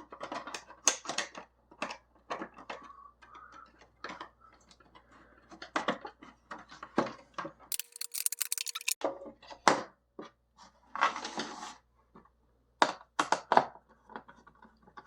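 Irregular clicks, taps and short rustles of small plastic parts of a chronograph's housing being handled and fitted together by hand.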